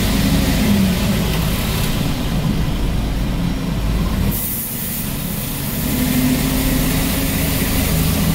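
Yard tractor's diesel engine running as it drives, heard from the cab. The engine note eases off briefly about halfway and then picks up again. From about halfway a high hiss joins it and keeps going.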